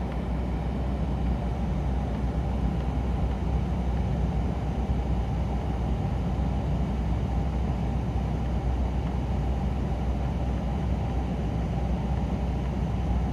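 Daihatsu Hijet's engine running steadily with a low, even hum.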